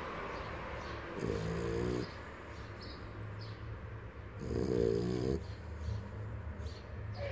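Small dog snoring in its sleep: two long snores about three seconds apart, each lasting close to a second.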